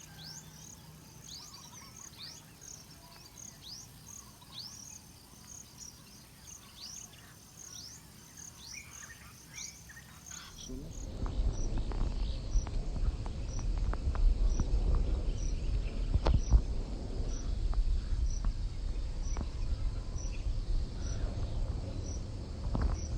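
Outdoor wildlife ambience: a string of quick, high, falling chirps repeats about once a second. About halfway through the sound changes to a low rumble of wind on the microphone, with a regular high chirping about twice a second over it.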